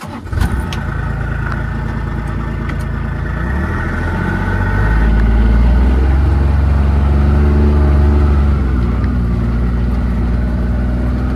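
A motor vehicle's engine starts up and runs, pulling harder and louder from about four seconds in and easing back a little near the end.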